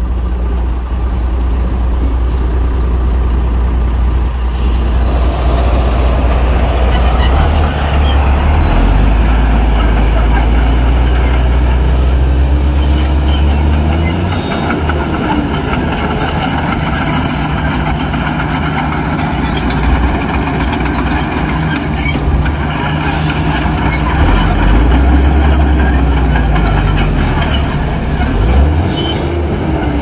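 Heavy diesel earthmoving machinery working: a deep engine note that rises about a quarter of the way in, drops back about halfway, and rises again near the end, with scattered metallic squeaks and clinks over it.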